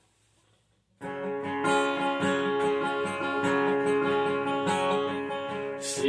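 Near silence for about a second, then an acoustic guitar starts strumming chords in a steady rhythm as a song's intro.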